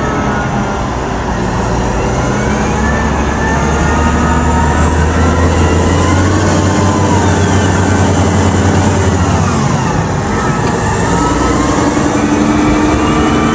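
Caterpillar 990 wheel loader's diesel engine working under load as the bucket digs into the coal pile. A deep steady drone grows louder from about five seconds in until nearly ten seconds in, with whines rising and falling over it.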